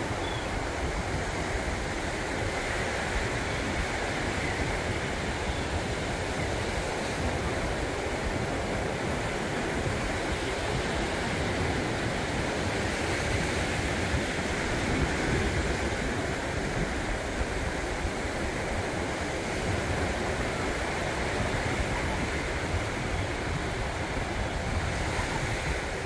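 Ocean surf breaking and washing up a sandy beach, a steady rush of waves, with wind rumbling on the microphone.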